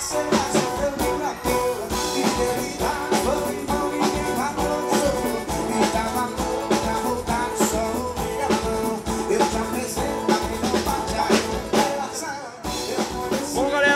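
Sertanejo band music with a drum kit keeping a steady beat under guitars, cutting off about a second before the end.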